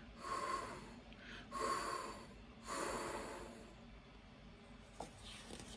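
A woman imitating the wind with her breath: three breathy whooshes, each under a second long.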